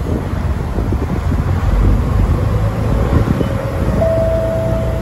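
Low, steady rumble of diesel railcars at a station platform, with wind buffeting the microphone. About four seconds in, a steady high tone comes in and holds.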